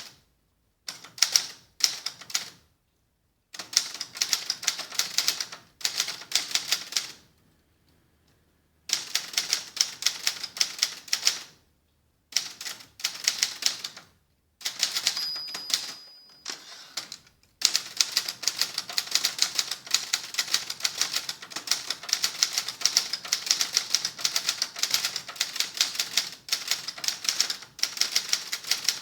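Adler Gabriele 25 manual typewriter being typed on, its typebars striking in fast runs of clacks with short pauses between. About fifteen seconds in, a short bell ding sounds, typical of the margin bell near the end of a line.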